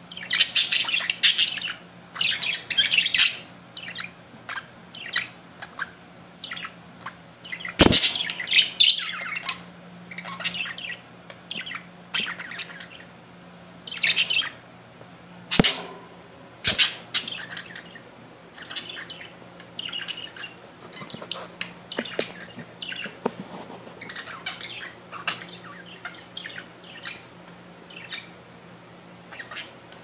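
A flock of English and Australian budgerigars chattering: rapid high chirps, warbles and short squawks with hardly a pause. Three sharp knocks break in, the first about eight seconds in, over a faint steady low hum.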